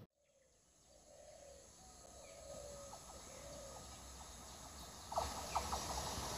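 Quiet trackside ambience: a bird calls a few times in short wavering notes while the low rumble of an approaching EMU local train slowly builds in the background. A few faint clicks come about five seconds in as the rumble gets louder.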